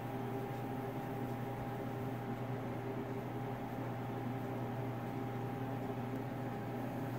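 Steady electrical hum and hiss from an idling 1970 Wurlitzer Statesman jukebox, powered up with its lights on but no record playing. The hum is one unchanging low drone with a couple of higher steady overtones.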